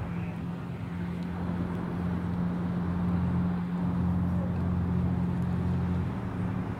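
An engine running steadily: a low droning hum under a rushing noise. The hum drops away about six seconds in.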